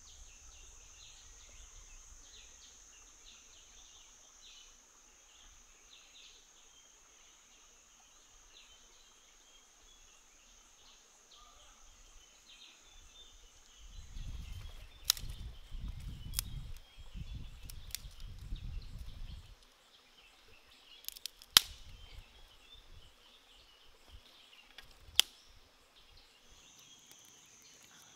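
Forest ambience: a steady high insect drone with chirping. About halfway through, a few seconds of low rumble and several sharp snaps take over, and the insect drone returns near the end.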